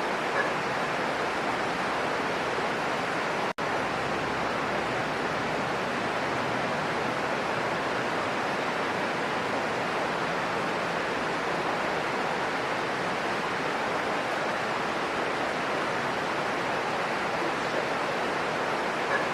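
Heavy rain falling as a steady, even hiss; the sound cuts out for an instant about three and a half seconds in.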